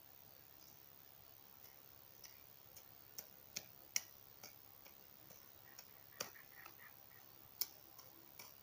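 Irregular light clicks and taps against near silence, about a dozen of them at uneven intervals, the sharpest about four seconds in and another near the end.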